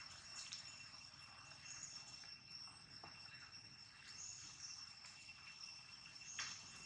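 Faint, steady high-pitched insect trilling, like crickets, with a few soft clicks and rustles of dry leaves.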